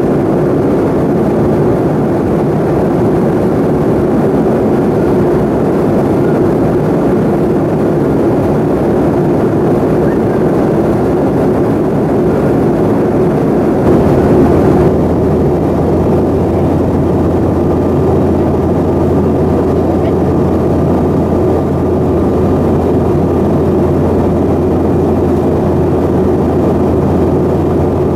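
Steady cabin noise of a Bombardier CRJ-700 in flight: the rear-mounted GE CF34 turbofans and airflow, loud and even. About halfway through, the sound shifts to a deeper, steadier hum where the recording is cut.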